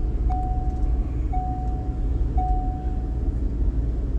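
Car running on the road, heard from inside the cabin as a steady low rumble, with an electronic warning chime sounding three times, about once a second, each tone held for nearly a second.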